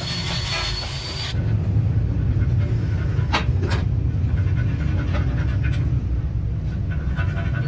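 A steady low rumble with a few sharp metallic clinks as heavy cast-iron workshop parts are shifted by hand.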